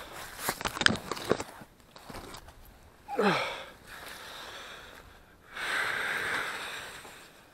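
A climber coming down a tree: knocks and scrapes of hands and boots against branches and rustling leaves in the first second and a half, then heavy breathing from the effort, with a falling groan about three seconds in and a long exhale near the end.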